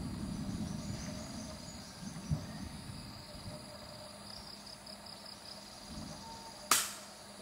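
Insects chirring steadily, then a single sharp air rifle shot about six and a half seconds in.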